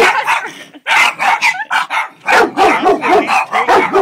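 Dogs barking at a fence in quick repeated bursts, with a short break a little under a second in, then a fast run of barks at about four a second in the second half.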